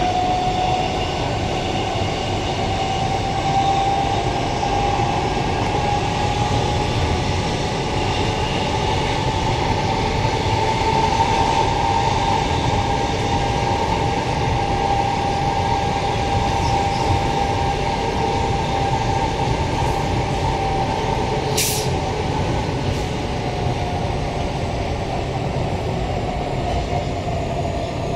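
Queensland Rail electric multiple unit running along the line, heard inside the passenger car: a steady rumble of wheels on track with an electric whine that rises a little over the first dozen seconds and sinks near the end. One short sharp click about 22 seconds in.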